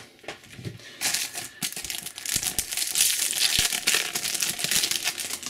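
Foil trading-card booster pack crinkling as it is torn open in the hands: a dense crackling rustle that starts about a second in and lasts about four seconds.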